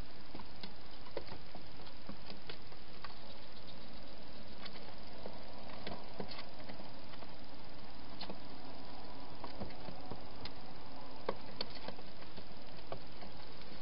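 Wild hedgehogs feeding at a garden feeding station: scattered small clicks and crunches of eating and moving about, over a steady hiss.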